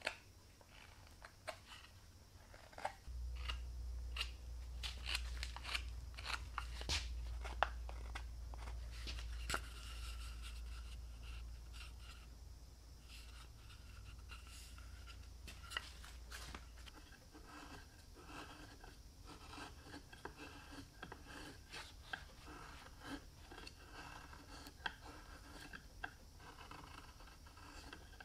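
Hand carving of cypress wood with a carving knife and gouge: a run of short slicing and scraping cuts. A low steady hum sits under the cuts from about three seconds in until just past the middle.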